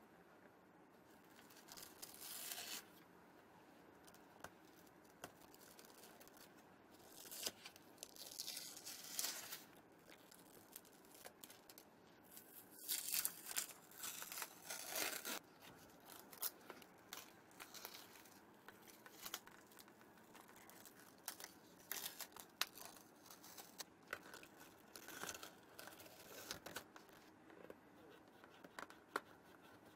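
Masking tape being peeled off a white leather sneaker in several long rips with some crinkling, followed by a run of light clicks and scratches.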